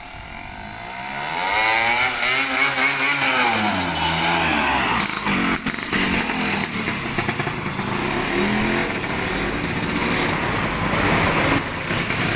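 A tuned racing Vespa scooter engine revved: its pitch climbs steeply about a second in, falls back after a couple of seconds, then rises briefly twice more as the throttle is blipped.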